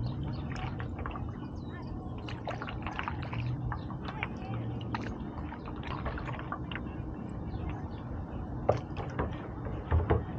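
Stand-up paddle dipping into water with small irregular splashes and drips, and two sharper splashes near the end.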